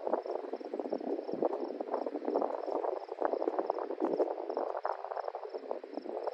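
Dense chorus of frogs calling, many short overlapping croaks, with a faint high ticking repeating about four times a second.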